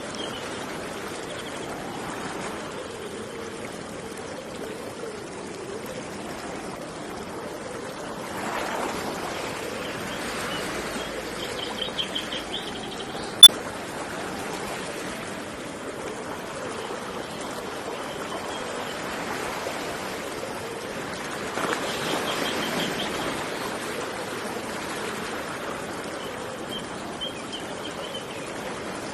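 River water running steadily, swelling twice, with birds giving short high trills now and then. A single sharp click about halfway through.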